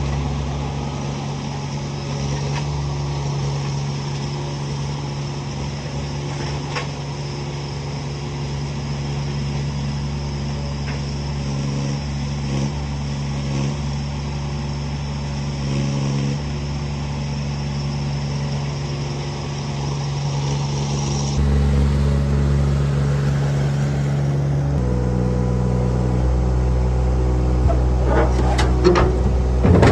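A vehicle engine running steadily. The sound changes abruptly about 21 seconds in, and the engine note drops slightly a few seconds later. A few clicks come near the end.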